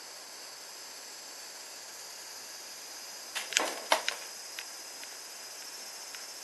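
A cat pouncing on cat toys on tatami mats: a quick cluster of soft thumps and clicks about three and a half seconds in, then a few faint ticks, over a steady high hiss.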